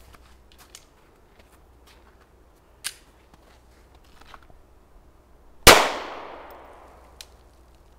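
A single handgun shot about two-thirds of the way through, loud and sharp, with an echo that fades over about a second and a half. A fainter sharp click comes a few seconds before it.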